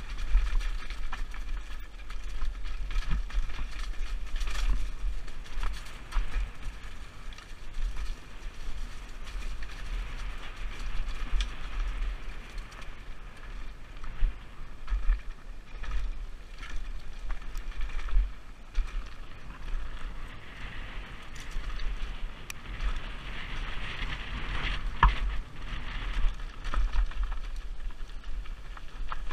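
Mountain bike riding down a dirt singletrack, heard from a helmet camera: tyres rolling over dirt and stones, frequent knocks and rattles from the bike, and wind buffeting the microphone with a low rumble.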